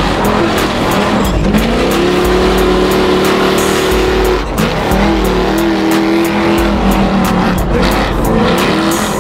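Bogg truck's engine revving hard through a mud bog run: the revs climb and hold high, dip briefly about halfway through and again near the end, then climb again.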